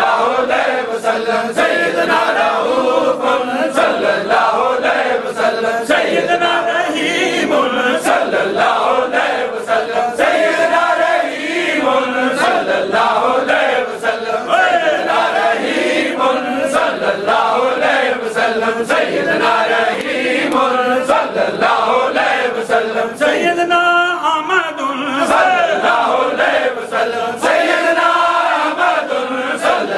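A group of men chanting dhikr in unison, repeating the same short phrase over and over in a steady rhythm.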